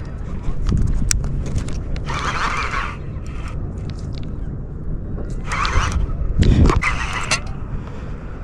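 Fishing reel worked against a hooked fish: scattered clicks and scraping, with two short rasping bursts about two and six seconds in, over a steady low rumble.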